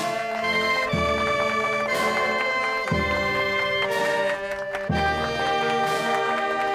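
Instrumental music: held chords over a deep bass note that sounds about every two seconds.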